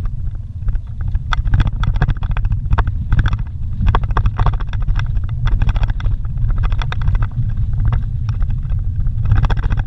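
Vehicle driving over a rough dirt road, heard from inside the cabin: a steady low engine and road rumble with frequent rattles and knocks as it jolts over the bumps.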